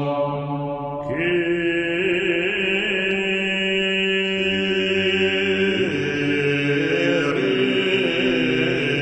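Music of long, held droning tones with a chant-like sound. A brighter layer comes in about a second in and holds steady, with a few slow bends in pitch.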